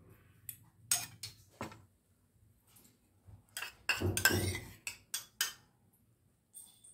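Steel spoons clinking and scraping against a stainless steel bowl as puffed rice is mixed with chutney. Scattered single clinks come first, then a longer spell of clatter and scraping about four seconds in, followed by a couple more clinks.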